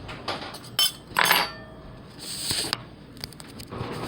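Metal cutlery clinking and knocking as spoons, forks or knives are handled, a few separate clinks with the loudest about a second in and a quick run of light clicks near the end.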